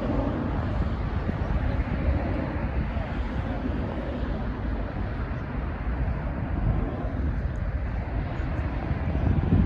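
Airbus A330 jet engines rumbling as the airliner climbs away after takeoff: a steady, deep noise without distinct tones.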